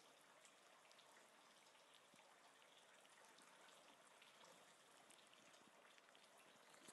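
Near silence: a faint steady wash of river water with a few soft drips.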